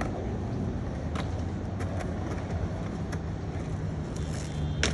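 Low steady rumble of skate wheels rolling on concrete, with scattered faint clicks and a sharp clack near the end.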